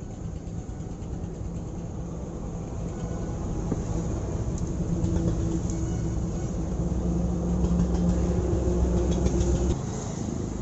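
A vehicle engine running with a low, steady drone that grows louder over several seconds, then drops off suddenly near the end.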